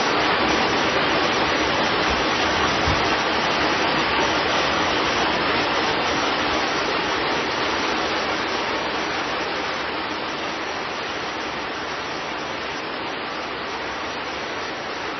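Rain falling steadily, a dense, even hiss that eases slightly over the last few seconds.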